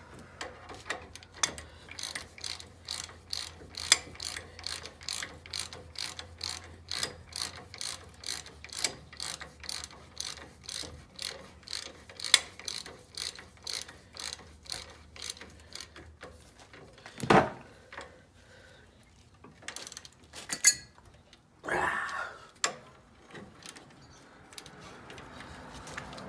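Ratchet wrench clicking in quick, even strokes, about three clicks a second, as the rear brake caliper mounting-bracket bolts are tightened down. The ratcheting stops after about sixteen seconds, followed by a few louder separate knocks.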